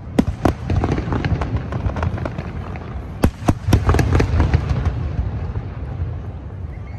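Fireworks display going off in quick, irregular succession: many sharp bangs and crackles over a steady low rumble, the loudest about a quarter-second in and again just after three seconds in.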